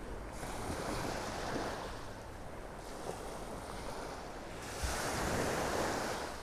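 Small gulf waves breaking and washing up the beach, two surges a few seconds apart, with a low wind rumble on the microphone.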